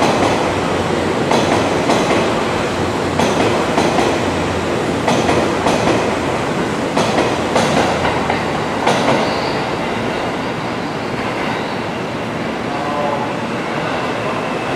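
Train wheels clacking over rail joints in an echoing station, the clacks coming in pairs about every second and a half and stopping about nine seconds in, after which a steady rail and station hum remains.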